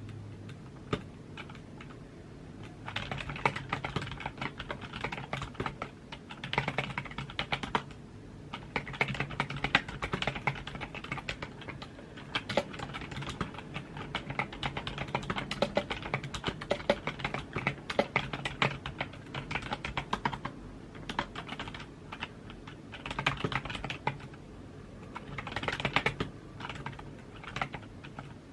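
Typing on a computer keyboard: fast runs of key clicks with short pauses between bursts.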